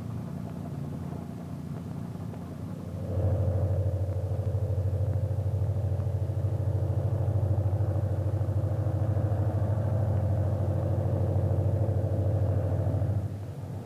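Great Northern diesel locomotive running past with a steady low engine rumble and a fast, even throb. It grows much louder about three seconds in and drops away just before the end.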